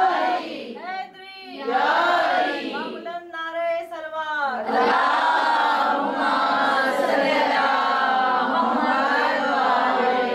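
A woman's solo voice chanting a melodic line in short phrases with pauses. About five seconds in, a gathering of many voices takes it up and chants together in unison.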